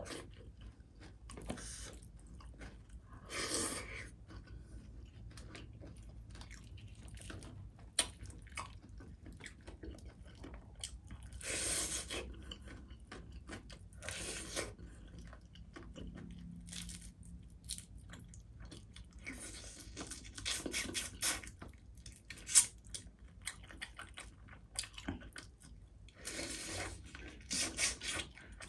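Close-miked chewing and crunching of crispy fried fish, with loud crunches every few seconds and quieter chewing between, and one sharp crack a little over twenty seconds in.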